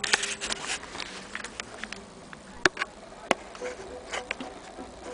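Irregular sharp clicks and light taps: a quick cluster at the start, then single clicks about a second apart. A faint thin buzz comes in during the second half.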